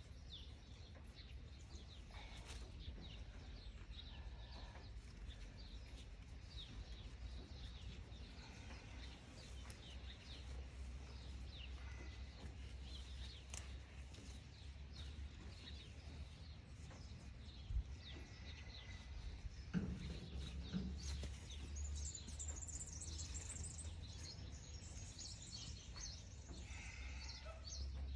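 Outdoor ambience of small birds chirping and singing, with a busier run of high song about three quarters of the way through, over a steady low hum. Two brief knocks come past the halfway point.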